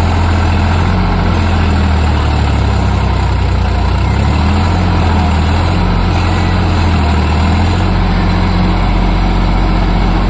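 Swaraj 744 FE tractor's three-cylinder diesel engine running steadily as the four-wheel-drive tractor works to climb out of deep paddy-field mud, its low hum swelling and easing slightly.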